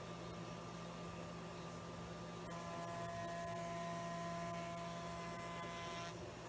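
Spindle shaper running with a steady hum; from about two and a half seconds in until about six, a higher steady whine and hiss as its 1/4-inch roundover cutter cuts along the edge of an MDF panel.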